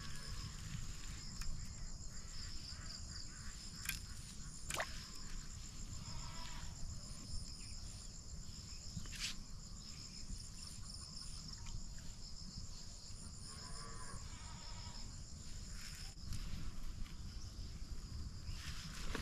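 Steady chorus of insects trilling high and even, with a few brief clicks and a low steady noise underneath.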